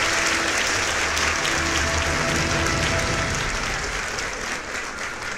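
Applause with steady music tones underneath, the whole fading down toward the end.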